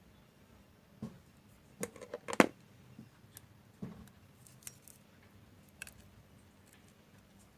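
Small hand tools handled on a workbench, giving scattered light clicks and taps, with a quick cluster of sharper clicks about two seconds in.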